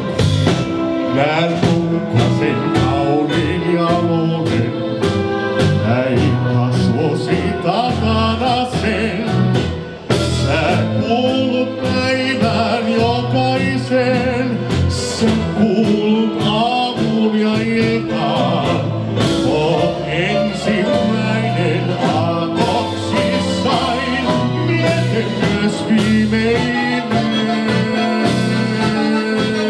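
Live dance band playing a Finnish schlager ballad, a male vocalist singing over drums, electric guitar and keyboard. The music briefly drops in loudness about ten seconds in.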